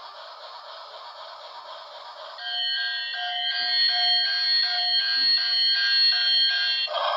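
Electronic alarm-like beeping: several steady tones pulsing about twice a second. It starts a couple of seconds in, after a hissing rustle, and stops just before the end.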